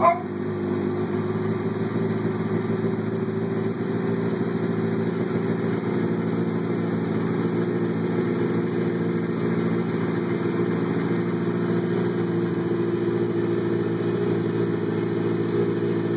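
Kawasaki ZX-6R motorcycle's inline-four engine idling steadily.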